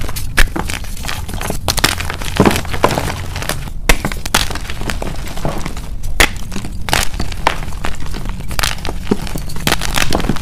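Dip-dyed gym chalk blocks crushed and crumbled by hand, giving a dense, irregular run of sharp cracks and crunches as the blocks snap and powder apart.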